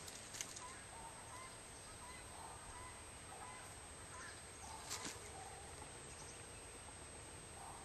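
Faint outdoor background with chickens clucking now and then in the distance, and a couple of sharp clicks, the clearest about five seconds in.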